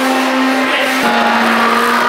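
Handheld immersion blender running steadily in a bowl of crepe batter: a loud, even motor whine that dips slightly in pitch about a second in.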